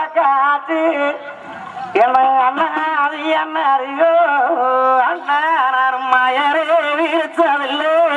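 A single voice singing a Tamil folk song in long, held, wavering notes with ornamented turns, dipping briefly quieter about a second in before carrying on.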